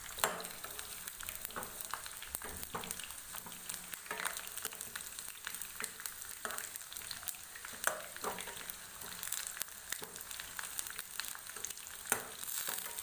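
Potato chunks frying in hot oil in a wok-style pan: a steady crackling sizzle, with a steel ladle now and then scraping and knocking against the pan as the pieces are turned. The potatoes are being fried until golden.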